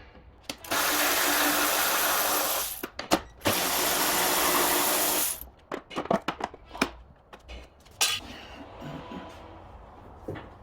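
A power tool running in two bursts of about two seconds each, undoing the bonnet hinge bolts, followed by scattered clicks and knocks of metal parts being handled.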